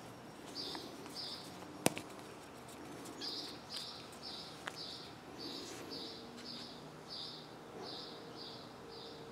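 A bird chirping over and over, short high calls about two to three a second. A single sharp click stands out about two seconds in, with a fainter one near five seconds.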